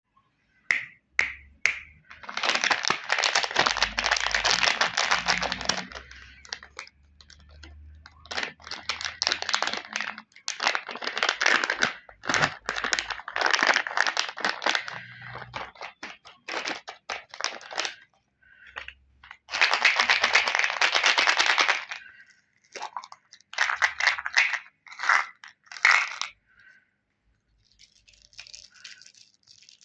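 Plastic candy wrappers being torn open and crinkled, in bursts of several seconds with short pauses between.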